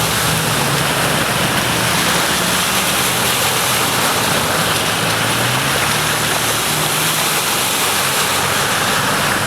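Heavy rain pouring down in a storm, a loud, steady rush, with a faint low hum underneath.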